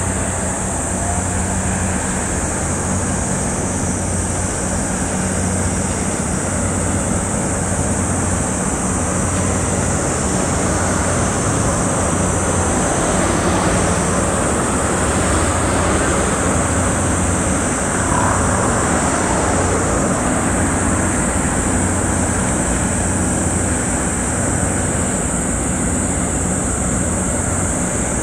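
Steady low hum and rumble from a large cruise ship's machinery as it passes close by, mixed with wind and water noise; it swells slightly about halfway through.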